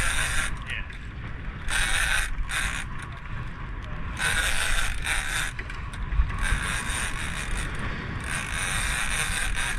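Big-game fishing reel working in bursts of about a second, six times, as line is fought against a hooked marlin, over a steady low rumble.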